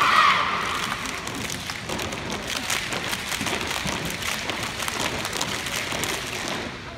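A dense, irregular patter of many hands clapping and slapping. Crowd cheering dies away in the first moment.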